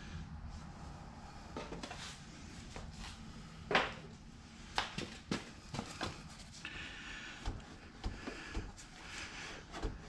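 Scattered knocks and clicks as a motorcycle front wheel is shifted by hand and worked free of the fork, with the loudest knock about four seconds in.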